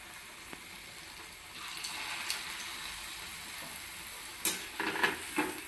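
Sweet corn vadas deep-frying in hot oil: a steady sizzle that grows a little louder about a second and a half in, with a sharp click about four and a half seconds in.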